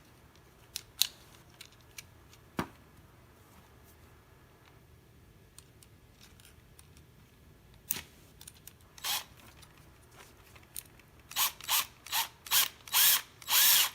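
A few scattered sharp clicks, then near the end a run of about six quick ratcheting bursts about half a second apart, as a ratchet mechanism is turned on the headstrap's knob assembly.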